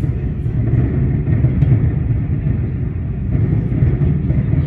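Distant fireworks display: many bursts blending into a continuous low rumble of booms.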